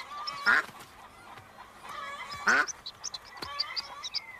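A domestic duck quacks twice, loud and harsh, about half a second and two and a half seconds in. A small chick then peeps rapidly in short, high notes near the end.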